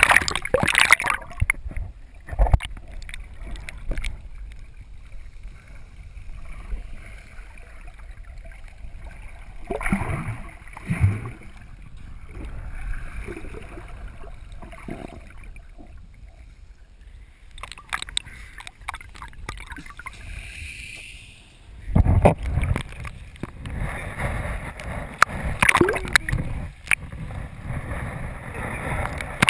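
Water sloshing and gurgling around a waterproof action camera riding at the surface, muffled whenever it dips under. There is a burst of splashing about ten seconds in, and louder splashing from about twenty-two seconds in.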